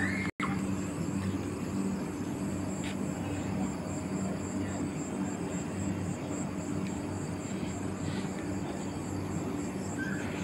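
Steady low machine hum from a tea factory running, with a high, rapid pulsing chirp over it.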